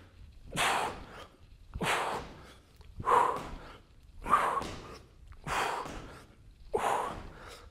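A man's hard exhalations during jump squats, one forceful breath out with each jump, six in all at an even pace of about one every second and a bit.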